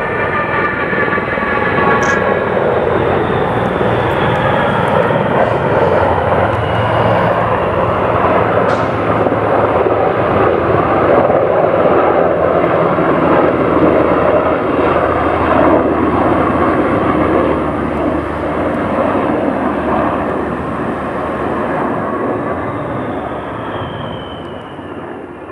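Low formation flypast of a Lockheed Martin HC-130J Combat King II with HH-60G Pave Hawk helicopters: the loud drone of the Hercules' four turboprop engines mixed with helicopter rotor noise, swelling to its loudest in the middle and fading near the end with a falling whine as the formation passes.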